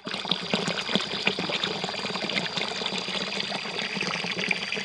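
Water pouring out of a pipe and splashing into a shallow pool in an irrigation ditch: a steady rushing trickle.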